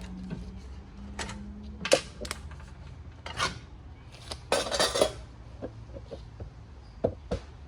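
Metal clinks, knocks and scrapes of tools and small engine parts being handled during disassembly, coming irregularly, with the sharpest knock about two seconds in and a short clatter just before five seconds in.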